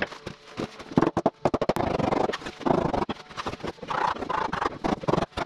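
A rapid, irregular series of hard wooden knocks from a mallet striking an oak brace, driving its tenon home into the brace pocket of a timber frame.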